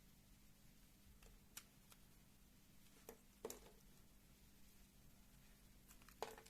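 Blade cutting into a bar of soft textured soap: a few short crisp cuts over near silence, the loudest a little past the middle and another near the end.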